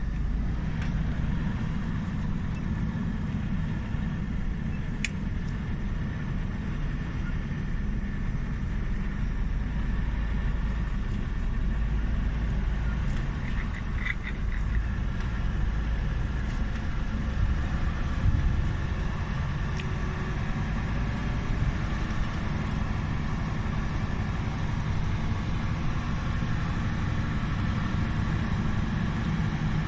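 Heavy truck's diesel engine running steadily while driving, heard from inside the cab as a constant low drone, with a few faint clicks.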